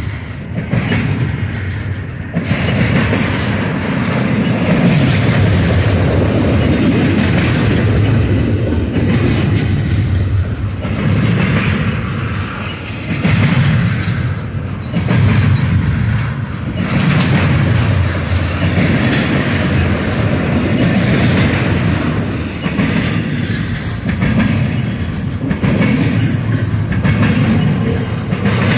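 Double-stack intermodal train of container well cars rolling past close by: steel wheels clattering and rumbling on the rails, rising and falling in waves every few seconds as the cars go by.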